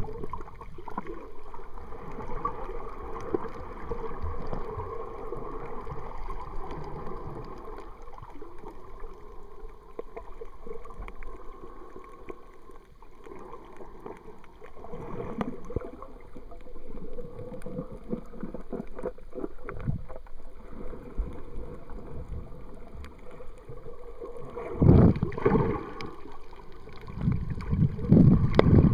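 Water moving around an underwater camera: an uneven, muffled sloshing and rumbling, with two louder surges near the end.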